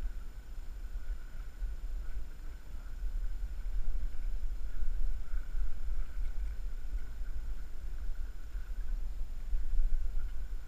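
Wind buffeting the action-camera microphone, a low, uneven rumble, with a faint steady high whine underneath.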